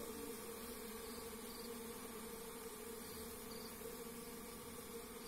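Faint, steady buzzing hum of a bee colony, stirred up on a wooden box hive as a bare hand reaches in to harvest the honey.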